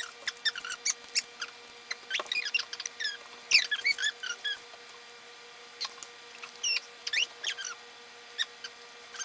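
Hard plastic toy packaging being handled and pried open, giving scattered short high squeaks and sharp clicks, busiest in the first five seconds.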